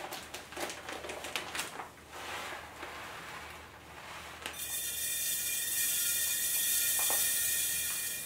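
A plastic bag of rice crinkling as it is lifted and tipped. About four and a half seconds in, a steady hiss of uncooked rice grains starts pouring into a large glass storage jar.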